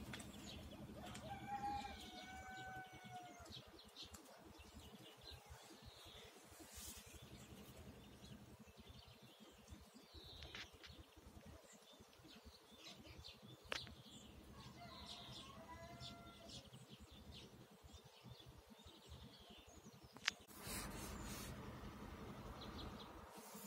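Faint birds chirping on and off, with two longer pitched calls, one about a second and a half in and another about fifteen seconds in, and two sharp clicks in the second half.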